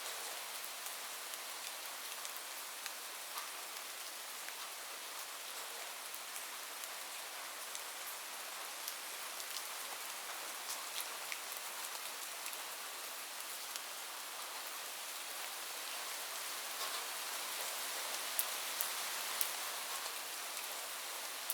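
Steady heavy rain falling on a roof: a dense, even hiss of drops with scattered sharper ticks, and a few louder drop strikes near the end.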